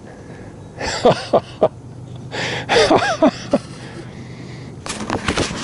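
A man's strained grunts and throat noises, not words, as he pulls against a big blue catfish on rod and reel. Near the end a rush of splashing water begins as the fish reaches the surface.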